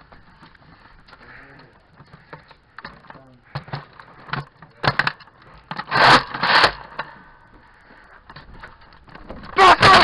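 Scattered sharp clicks and short noisy bursts, the loudest a pair about six seconds in and another near the end: foam-dart Nerf blasters being primed and fired.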